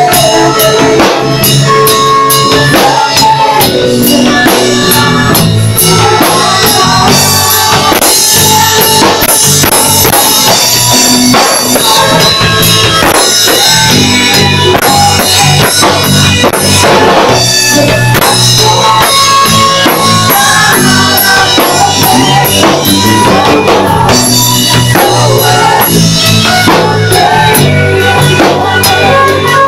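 A full worship band playing loudly, with drum kit, bass and guitar under a woman's lead vocal and a backing singer.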